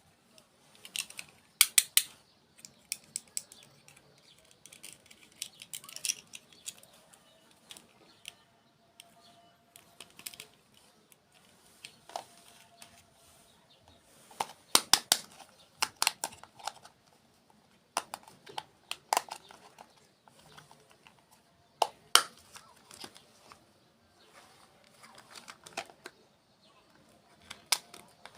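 Close-miked eating of sweets: crisp bites and crunchy chewing, in short clusters of sharp crackles every couple of seconds.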